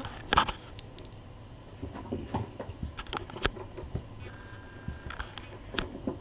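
Handling noise from a webcam being moved and set down: two sharp knocks at the start, then scattered light clicks and rustles.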